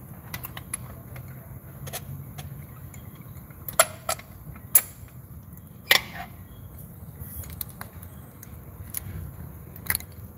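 Spark plug socket and steel extension clinking and tapping against the engine's cylinder head and plug well while a spark plug is worked out. Scattered sharp metallic clicks, the loudest a few seconds in, over a low steady hum.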